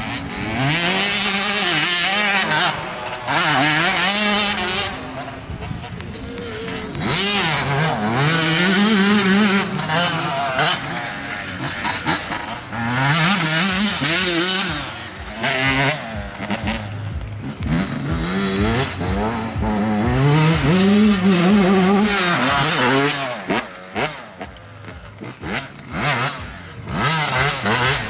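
Motocross dirt bike engines ridden hard, revving up and dropping back over and over as the bikes pass one after another. Near the end the engine note comes in short, choppy spurts.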